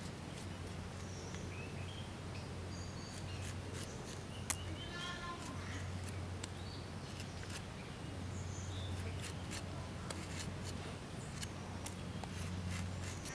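A knife slicing through crisp star fruit, giving a scatter of light clicks and cuts, with one sharper click about four and a half seconds in. Birds chirp in the background over a steady low hum.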